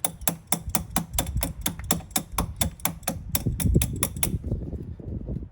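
Rapid, evenly spaced metal taps, about five a second, as a car battery terminal clamp is knocked down onto its post over a shim, seating it. The tapping stops about four and a half seconds in.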